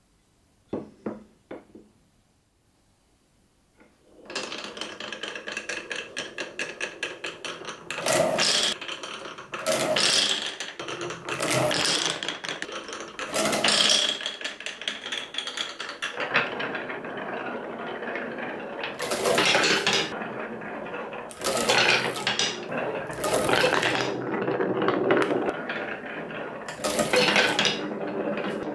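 A few sharp wooden knocks as a track piece is set down, then from about four seconds in, glass marbles rattling rapidly down wavy-grooved wooden marble-run ramps, a dense clatter that swells louder again and again as more marbles pour through.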